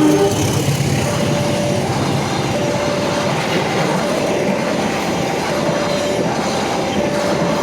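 A train running past over the level crossing, a steady dense rumble with clattering wheels on the rails. Through it the crossing's warning signal sounds a repeating single-pitched electronic tone, on and off roughly every second and a bit.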